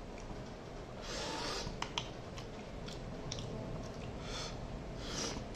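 Close-up eating sounds: chewing, with fingers mixing rice and fish curry on a steel plate. Soft smeary squishes and a few small clicks come and go.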